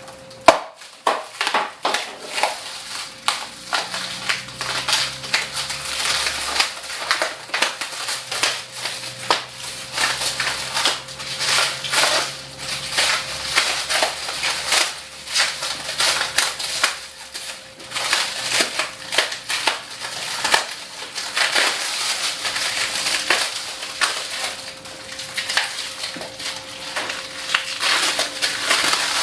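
Plastic packaging wrap being cut with a safety blade and pulled off a piece of equipment, a dense, continuous run of crinkling and crackling with a sharp snap about half a second in.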